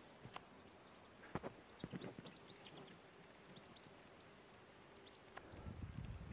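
Faint outdoor ambience at near silence: many short, faint high chirps over a steady hiss, a few soft clicks, and a low rumble near the end.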